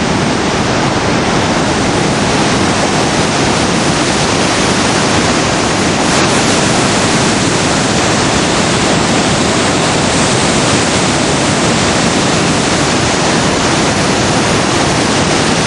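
Water released through the Cleveland Dam rushing down into the Capilano Canyon: a loud, steady rush of falling water.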